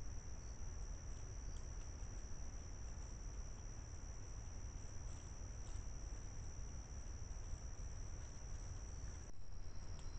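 Steady high trill of crickets in a night insect chorus, over the low hiss of a trail camera's microphone, with a few faint ticks.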